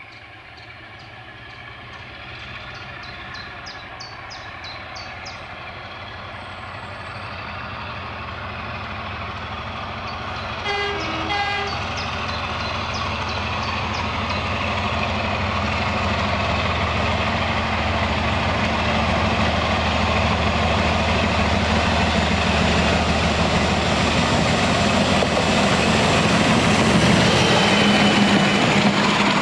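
A BR Sulzer Type 4 'Peak' diesel locomotive approaches under power, its engine growing steadily louder until it passes close by near the end. About eleven seconds in it sounds a short two-tone horn.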